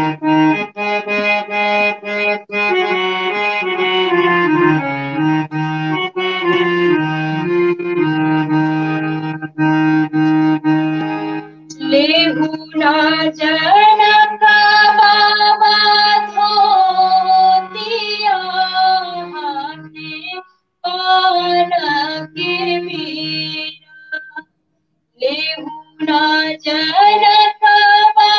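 Harmonium playing a prelude of steady held chords. About twelve seconds in, a woman begins singing a Bhojpuri folk song over it, with two brief breaks near the end.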